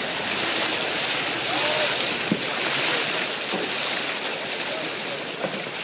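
Steady rush of river water and wind buffeting the microphone, heard from out on the water.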